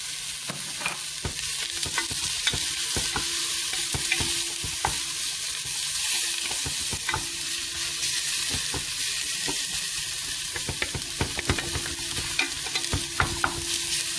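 Onion and garlic sizzling in hot olive oil in a pot, with a steady hiss. A utensil stirring them knocks and scrapes against the pot in many irregular clicks, more often in the second half.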